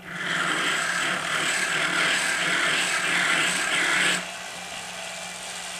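Rotary tool motor running with a diamond burr grinding the inside of a hard 50 New Taiwan Dollar coin ring to enlarge it. A steady motor hum runs under a harsh grinding hiss, and the grinding drops away about four seconds in while the motor keeps running.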